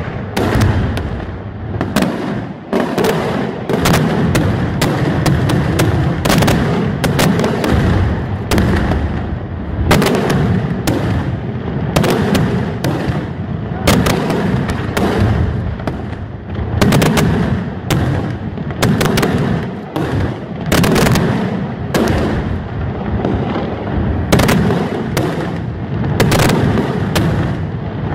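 Daytime fireworks display: aerial shells and firecracker salvos bursting overhead in a continuous barrage of loud bangs, several a second, over a rumble of overlapping reports.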